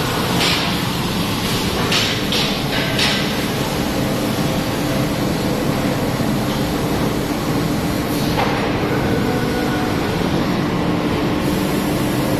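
Bystronic Byspeed 4.4 kW laser cutting machine running while it cuts sheet metal: a steady machine hum with a low drone, broken a few times by short hissing bursts.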